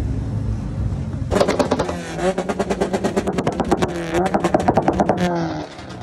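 Modified Honda Civic's aftermarket exhaust crackling and popping in rapid strings of sharp bangs while the engine is revved up and down. This starts about a second in after a steady engine note and lasts about four seconds, then falls back to a quieter run.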